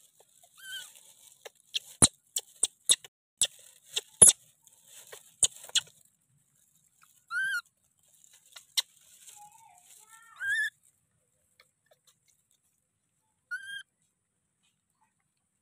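Baby monkey giving three short, high squeaky calls in the second half. Before them, a run of sharp crackles and snaps from leaves and twigs as it clambers on the branch.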